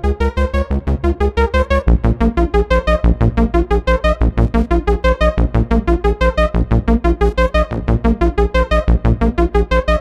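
MES Mini 11 software synthesizer playing a fast sequenced pattern of short, evenly spaced notes over a pulsing bass line, with the pattern shifting about two seconds in.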